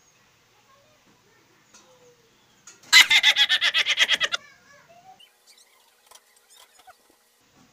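A rapid chattering animal call, about a dozen quick notes at roughly ten a second, lasting just over a second.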